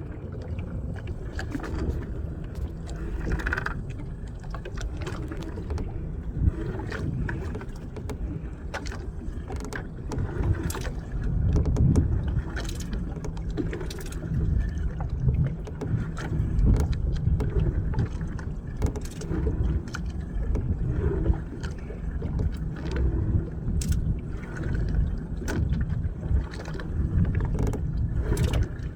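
Small fishing boat's engine running steadily under a rumble of wind and water, with scattered knocks and clatter.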